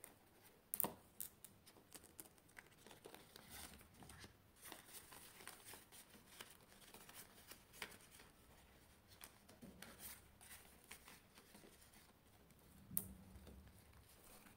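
Faint rustling and crinkling of paper banknotes and a clear plastic zip cash envelope being handled, with scattered small clicks, the sharpest about a second in and another near the end.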